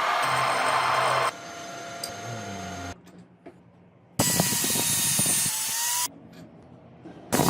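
Machining noise from power tools working metal, in short clips with hard cuts. Loud grinding or cutting passages with scattered clicks alternate with quieter stretches.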